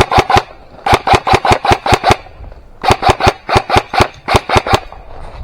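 Airsoft gun firing rapid bursts of sharp snapping shots, about ten a second, in about four bursts with short pauses between them.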